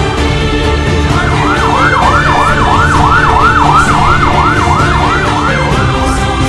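A siren in a fast yelp, rising and falling about three times a second; it starts about a second in and fades out near the end. Orchestral background music plays under it.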